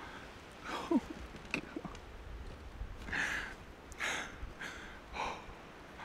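A person breathing hard and sighing: a short falling voiced sigh about a second in, then several heavy exhales about a second apart.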